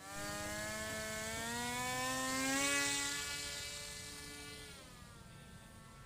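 A motor-like whirring whine that climbs in pitch and grows louder, then fades away after about five seconds, like an aircraft passing.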